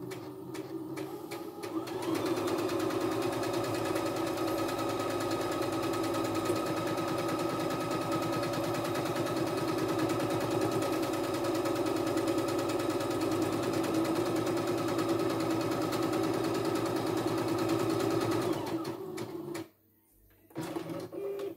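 CNY E960 computerized sewing machine stitching a buttonhole: the motor and needle run quietly for about two seconds, then at a steady full speed for about sixteen seconds, slowing and stopping when the buttonhole is finished.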